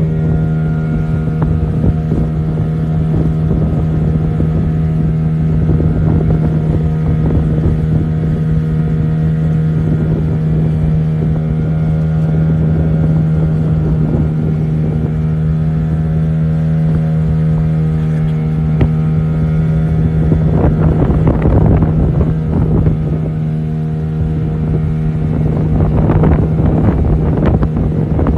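A motorboat engine runs at a steady, unchanging pitch, with wind buffeting the microphone and water rushing past the hull. Rougher gusts of noise come about two-thirds of the way through and again near the end.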